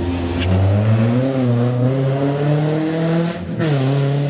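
Classic rally car engine accelerating hard, its pitch climbing steadily. About three and a half seconds in, a gear change drops the pitch sharply and the engine pulls on at a steady note.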